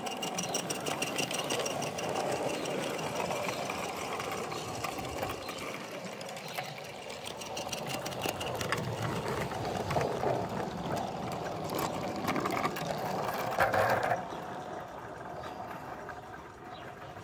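Vintage Archangel 0-4-2T 16mm-scale live steam locomotive running with its train: rapid, light chuffing and the clatter of small wheels on the rails. It gets loudest as the train passes close, about fourteen seconds in, then quietens as it draws away.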